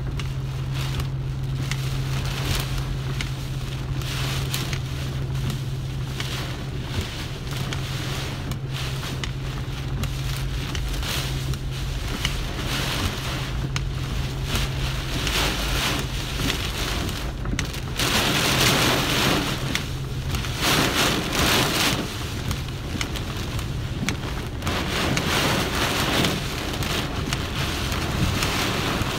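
Heavy downpour drumming on a car's roof and windshield, heard from inside the cabin, with a steady low hum under it for the first half. The rain surges louder for a few seconds about two-thirds of the way through.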